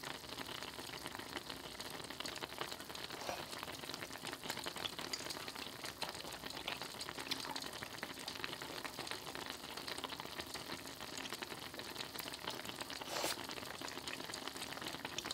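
Steady soft crackling hiss full of tiny clicks, with a couple of louder ticks about three seconds in and near the end.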